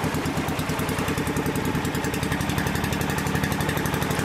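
Boat engine running steadily with an even, rapid pulse.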